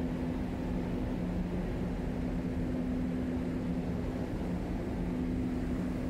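Steady drone of the Sunflower ferry's machinery on its open deck: a constant low hum over a rough, even rumble that does not change.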